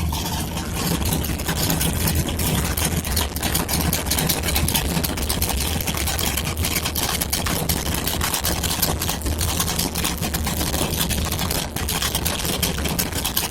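Engine idling steadily, a low hum with rapid, irregular ticking over it.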